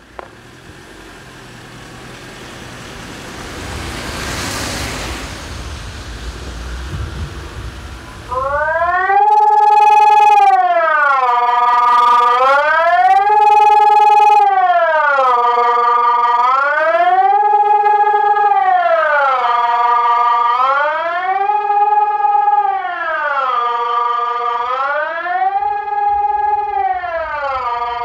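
Mobile siren on a fire brigade van sounding the Swiss general-alarm signal in a siren test: a loud wail starting about eight seconds in, rising and falling, one cycle about every four seconds. Before it, a vehicle's tyres hiss past on the wet road.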